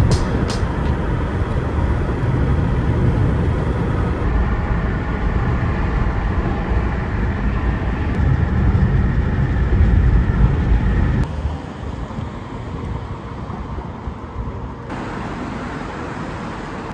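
Steady road noise inside a moving car's cabin, a low rumble. About eleven seconds in it cuts off suddenly to a quieter steady background.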